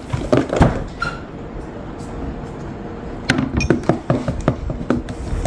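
Light taps and clicks from handling a phone's retail box, in a cluster at the start and again from about three seconds in, with a quieter stretch between.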